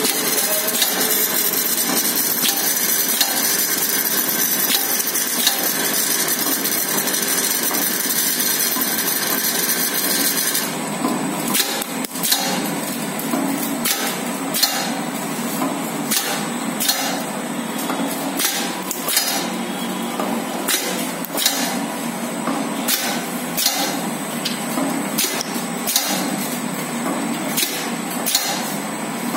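Automatic bottle filling and capping machine running. For about the first ten seconds there is a steady hiss and whir. It then changes abruptly to a hum with frequent sharp, irregular clicks and clatter of plastic bottles and caps moving through the steel starwheels.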